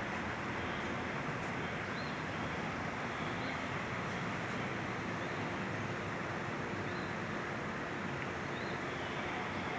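Two 56-inch Mitsubishi Electric C56-GW industrial ceiling fans running: a steady rushing of air from the fast-spinning blades, with a faint steady hum underneath.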